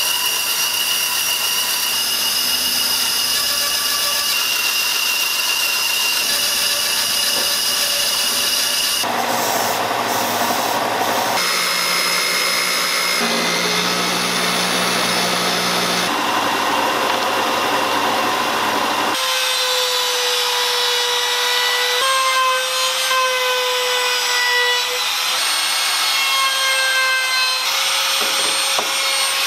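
Band saw running and cutting a small workpiece by hand along a paper pattern: a continuous blade-and-motor noise with steady whining tones. The sound changes abruptly several times as the cut shifts.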